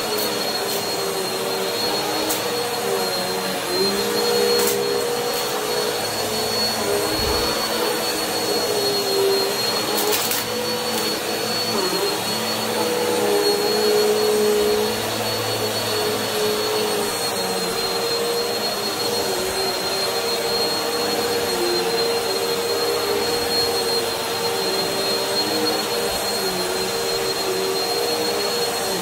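Bissell upright bagless vacuum cleaner running steadily as it is pushed back and forth over carpet: a continuous motor drone with a thin high whine, its pitch wavering slightly with the strokes. A couple of brief clicks come through in the first third.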